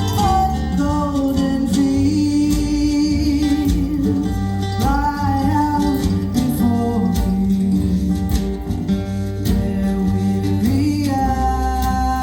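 Acoustic folk band playing live: plucked acoustic guitar and other strings under a long-held melody line that bends in pitch, with singing.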